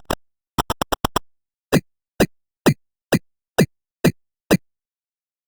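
A string of short electronic pops, each dipping slightly in pitch: a quick run of five, then seven evenly spaced about two a second.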